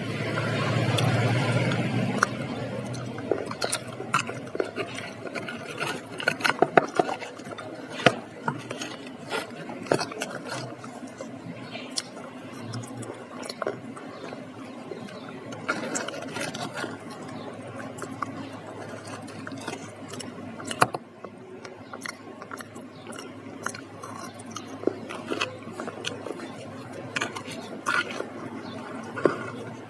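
Kitchen utensils tapping, clinking and scraping against dishes and pans in irregular short strikes. A rushing noise swells and fades in the first two seconds.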